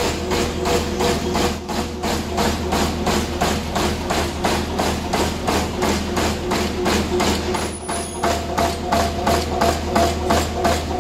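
Automated paper-converting machine running, its mechanism knocking in an even, rapid rhythm of about four strokes a second over a steady low hum.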